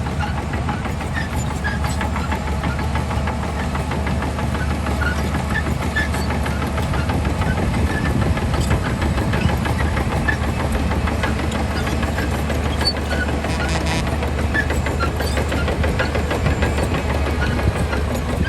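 Heavy diesel earthmoving machinery running steadily, with a deep, even engine drone and scattered short squeaks and clinks above it.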